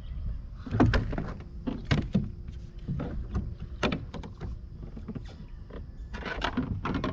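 A run of irregular knocks and thunks on a plastic fishing kayak while gear and a just-caught fish are handled on board.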